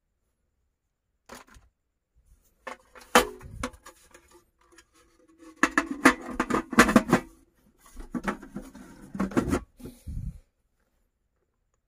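Irregular clicks, knocks and rustling of objects being handled, busiest in the middle and second half, then stopping near the end.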